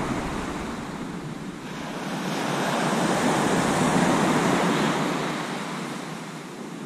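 Sea waves breaking and washing up a shingle beach: the surf swells up about two seconds in, peaks, then dies away again.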